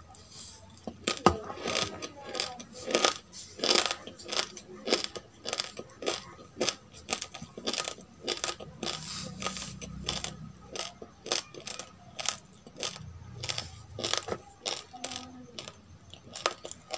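Close-up crunching of a mouthful of dry roasted rice grains being chewed, sharp crisp crunches repeating about two or three times a second.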